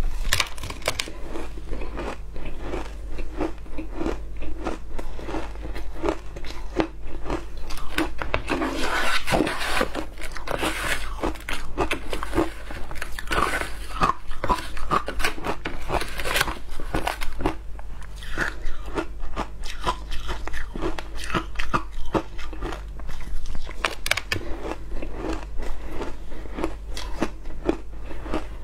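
Matcha shaved ice being crunched and chewed close to the mouth, many small crisp crunches in quick, continuous succession.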